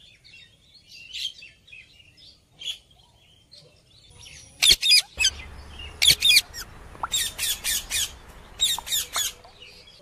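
Rose-ringed parakeets calling: faint scattered chirps at first, then, a little before halfway, loud harsh screeches in quick clusters of several calls each.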